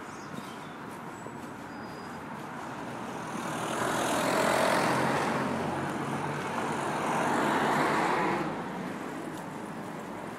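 Motor vehicles passing close by on a road. The traffic noise swells to a peak about four seconds in and again around eight seconds, then falls away.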